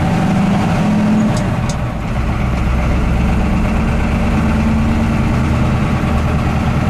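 1983 Chevy K20's 6.2-litre diesel V8 idling steadily, with two light clicks about a second and a half in.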